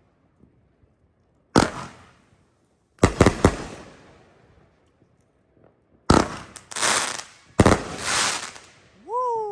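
Kronos 16-shot, 500-gram firework cake going off: a single shot about a second and a half in, a quick cluster of three or four shots around three seconds, then shots at about six and seven and a half seconds, each followed by about a second of crackling.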